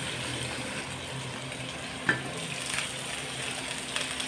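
Pork belly slices sizzling steadily as they fry in their own rendered fat in a wok: the liquid has cooked off and only oil is left. A short metallic clink comes about two seconds in.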